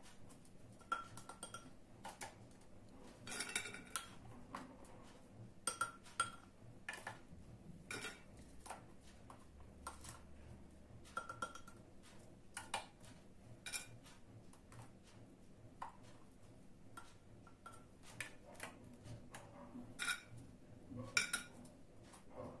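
Faint, irregular light clicks and clinks of ladyfinger biscuits and fingers against a ceramic bowl and a stainless steel cake frame as the biscuits are dipped in blended strawberries and laid in place; a few taps leave a short ring.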